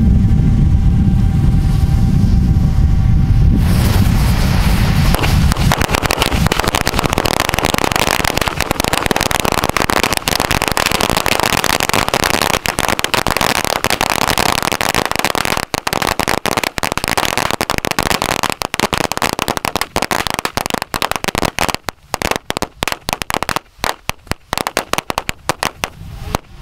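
Ten strings of firecrackers (carrilleras) going off together: a dense, rapid crackle of bangs that thins out into scattered single pops near the end.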